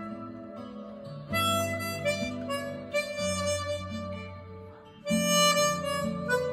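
Hohner 280-C chromatic harmonica playing a slow melody of long held notes over low sustained tones, with new, louder phrases coming in about a second in and again about five seconds in.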